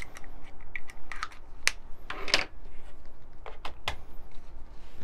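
An irregular series of light clicks and taps, about a dozen, with one longer scraping or rustling sound a little over two seconds in.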